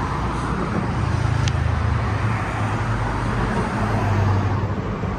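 Steady road traffic noise from a nearby street, a low rumble that swells twice, with a single short click about one and a half seconds in.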